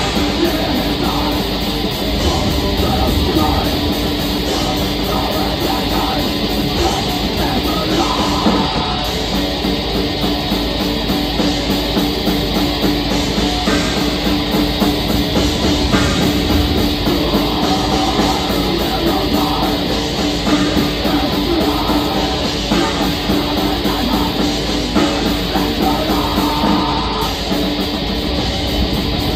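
Black metal band playing live: distorted electric guitars, bass and drum kit in a dense, unbroken wall of sound at a steady loud level.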